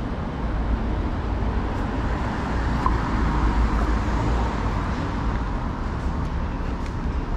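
Steady city-street traffic noise: cars passing with a continuous low rumble. A brief tone sounds about three seconds in.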